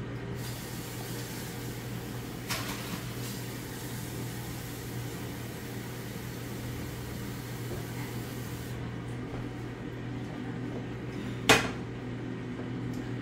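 Kitchen sounds during cooking: a steady appliance hum under a hiss that cuts off about nine seconds in. A light clack comes about two and a half seconds in, and a sharp single knock, the loudest sound, near the end.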